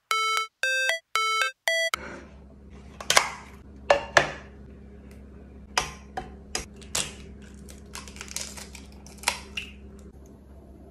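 A run of short electronic synth beeps for about the first two seconds, then a quiet room with a steady low hum and scattered sharp clicks and taps as a nonstick frying pan sitting on a clothes iron is handled and an egg is cracked over it.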